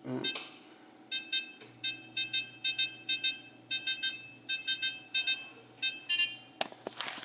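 A kitchen appliance's electronic beeps: many short high beeps in irregular quick runs, while a low steady hum starts just under two seconds in. A knock comes at the start and a brief clatter near the end.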